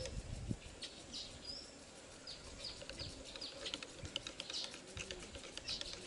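Faint, rapid light ticking and scraping of a stirring stick against the inside of an ostrich eggshell as the egg's contents are stirred, with a few short bird chirps in the background.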